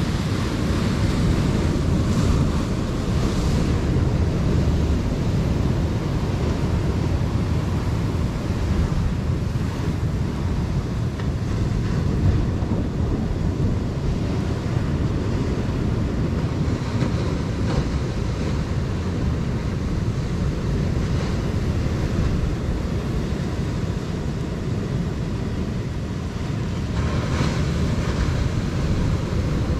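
Surf breaking and washing against a rocky shoreline, with wind buffeting the microphone as a steady low rumble. Louder crashes of spray come about two seconds in and again near the end.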